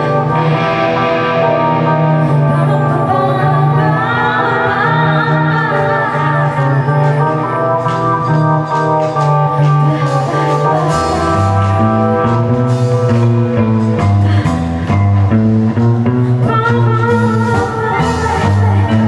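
Live music from a mixed ensemble of Minangkabau traditional instruments and a rock band line-up (electric guitar, bass, drum kit, keyboard), with singing. A wavering, ornamented melody stands out early, and about eleven seconds in a low bass line and percussion come in strongly.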